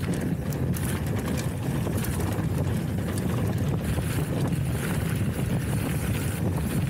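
Wind buffeting the camera microphone and a hardtail mountain bike's tyres rumbling over a rough trail while riding fast, with scattered small clicks and rattles from the bike over bumps.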